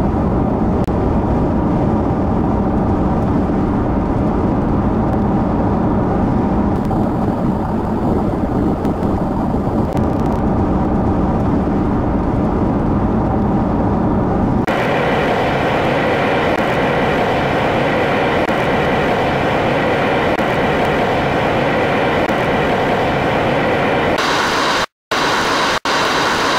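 Steady road and engine noise of a car driving on a highway, heard from inside the vehicle. About halfway through the sound changes abruptly to a higher, brighter tone, and near the end it cuts out briefly twice.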